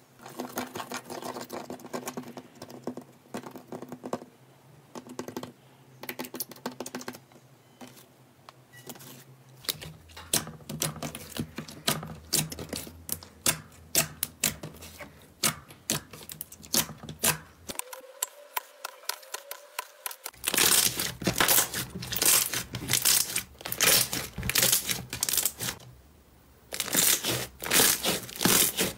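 Hands squishing, stretching and pressing thick slime, giving a rapid run of wet clicks and pops from trapped air; sparse at first, then much louder and denser in the last third after a brief pause.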